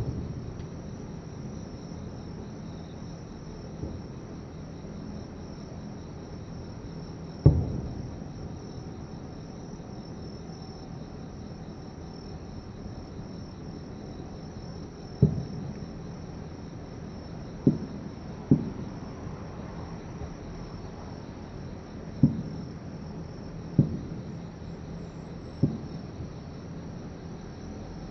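Distant aerial fireworks shells bursting as dull booms, about seven of them spaced a few seconds apart and bunched more closely in the second half, over a steady high chirring of insects.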